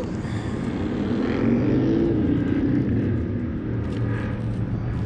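A passing vehicle: a low traffic rumble that swells about a second and a half in and then fades. A few light clicks come near the end.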